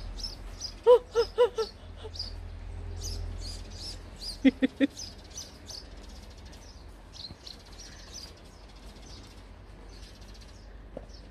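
Eurasian tree sparrows chirping, short high chirps repeating. Twice there is a quick run of louder, lower short calls: four about a second in and three at about four and a half seconds.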